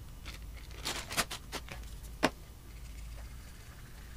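A few light clicks and taps from a small stainless steel cup and wooden stirring stick being handled while iron oxide is mixed into the pyrogen. The sharpest click comes a little over two seconds in.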